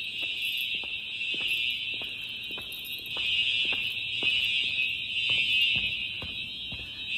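Simplex TruAlert fire alarm horns sounding a steady, unbroken continuous tone rather than the coded on-off pattern, echoing in a large room. Faint ticks about twice a second run under the horn tone.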